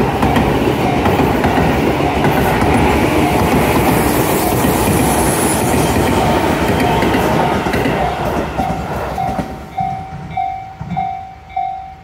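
A Tobu Skytree Line commuter train passing over a level crossing, its wheels clattering on the rails, while the crossing bell rings about twice a second. About ten seconds in the train noise dies away, leaving the bell ringing on its own.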